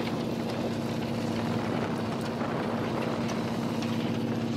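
Fishing boat's engine running with a steady, even drone, over the rush of churning water alongside the hull.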